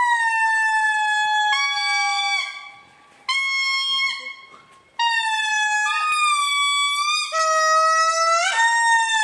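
Indri lemurs singing: a series of long, loud wailing notes, each held for a second or more and sliding slightly down in pitch, with two animals' voices overlapping at times.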